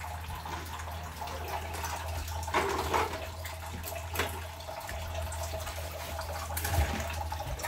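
Water running from a kitchen tap into a stainless-steel sink, with a few light clinks and knocks of kitchenware over a steady low hum.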